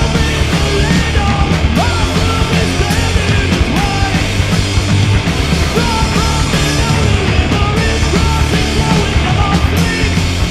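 Rock band playing: electric guitar and bass guitar with a man singing into a microphone.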